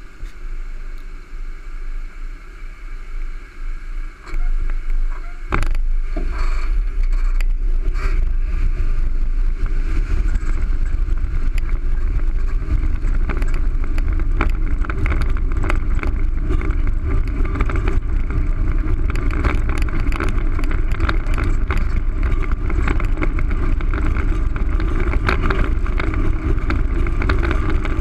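Longboard wheels rolling fast over asphalt, heard from a GoPro mounted on the board, with wind rushing over the microphone. After a few seconds of lighter knocks, a loud steady rumble sets in about five seconds in, peppered with small clicks from grit and cracks in the road.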